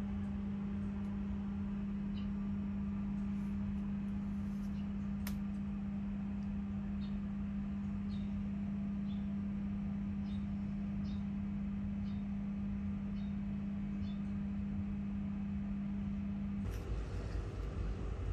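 Steady low machine hum at one constant pitch, with faint short high chirps every second or so. The hum changes abruptly near the end.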